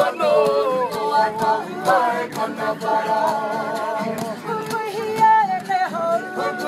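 A Māori kapa haka group singing unaccompanied, several voices together in held notes that glide from one pitch to the next.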